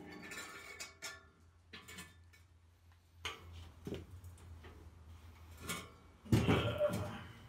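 Scattered light metal clicks and knocks as a stick welder's electrode holder and the steel frame are handled. About six seconds in comes a brief, louder crackling burst as the welding rod is struck against the steel.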